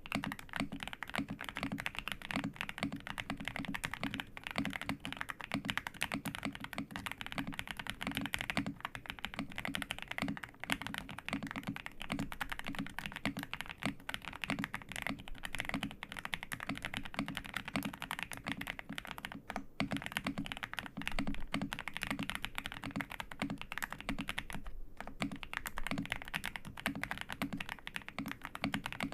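Continuous fast typing on a Xinmeng X98 mechanical keyboard with hand-lubed Xinmeng Plum switches: a dense run of keystrokes, broken by two brief pauses in the last third.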